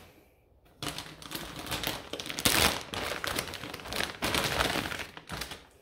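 Packaging crinkling and rustling as folded clothing is unwrapped and pulled out by hand, starting about a second in, with a dense run of small crackles and clicks.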